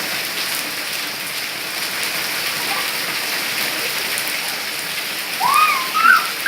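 Steady rain falling, an even hiss throughout, with a couple of short high sliding cries near the end.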